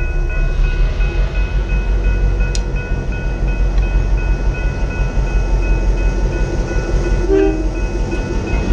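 Diesel locomotive rumbling past at close range as it slowly leads its train over a grade crossing, with the crossing bell ringing steadily. A short horn toot sounds about seven seconds in.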